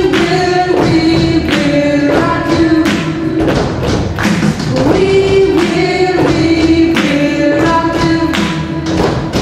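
Live band song: drums keep a steady beat of about two hits a second under keyboard and guitar while singers hold a gliding sung melody.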